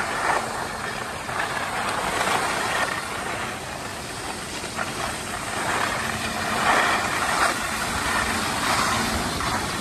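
Skis sliding over groomed snow: a steady scraping hiss that swells and eases as the skiers turn and check speed.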